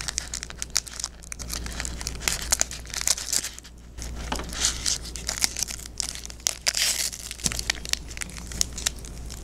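Foil wrapper of a 2018 Score football card jumbo pack crinkling and tearing as it is ripped open, with many small crackles and snaps.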